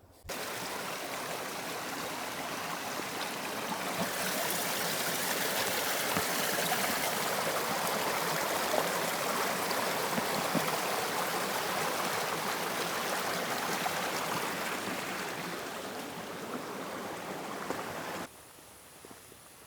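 Steady rushing of water in a flowing stream, an even hiss without pauses, cutting off abruptly near the end.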